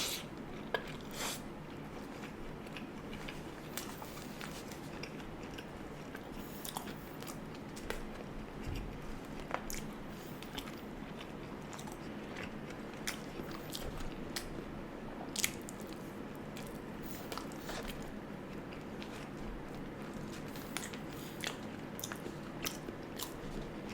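A person biting and chewing food close to the microphone, with many small, irregular mouth clicks and crunches over a steady low hum.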